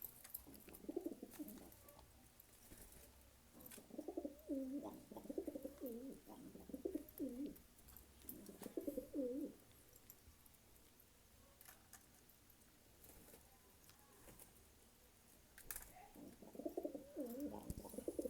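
Domestic pigeons cooing in four bouts of low, warbling coos, with faint clicks in between.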